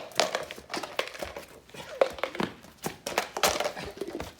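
Cones being knocked over and set back up in quick succession, with hurried footsteps and scuffling: a run of irregular knocks and clatters.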